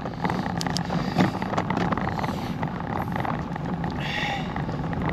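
Riding noise of a bicycle on wet tarmac: a steady rush of wind on the microphone and tyre hiss, with scattered light clicks.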